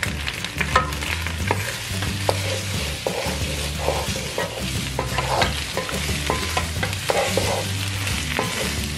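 A wooden spatula stirring and turning wide pieces of fresh pasta in a nonstick pan, with repeated scrapes and knocks against the pan over a light sizzle as the pasta heats in a little of its cooking water.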